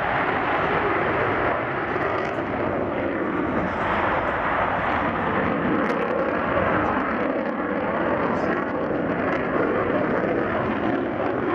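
Loud, steady jet noise from the two General Electric F414 turbofan engines of an F/A-18 Super Hornet flying a tight display turn.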